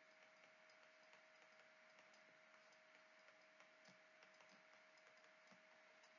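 Near silence: faint room tone with a thin steady hum and a few faint ticks.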